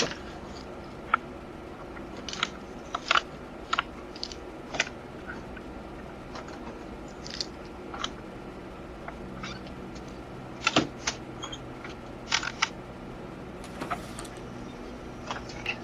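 Doorbell-camera audio from a front porch: a steady low hum with scattered short clicks and brief squeaks.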